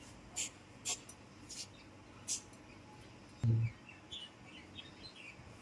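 Birds chirping: four short, sharp high calls in the first two and a half seconds, then a run of faint quick chirps. A single low thud about three and a half seconds in is the loudest sound.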